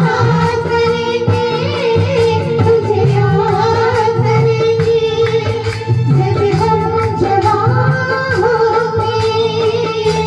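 Two women singing a Bollywood-style song into microphones over a backing track with a steady beat and repeating bass line.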